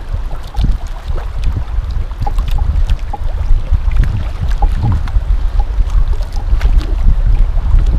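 Wind blowing on the microphone, a rumbling, fluctuating noise, over water lapping at an outrigger boat's hull, with scattered light clicks.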